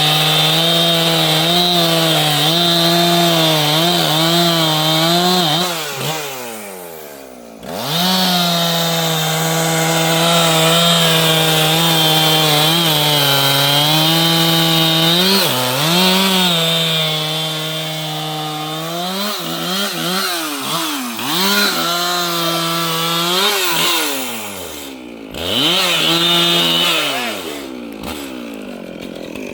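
Two-stroke chainsaw running at high revs through long steady stretches, cutting wood. It drops off toward idle about six seconds in and again near 25 s, then is revved back up, with the revs rising and falling repeatedly in between.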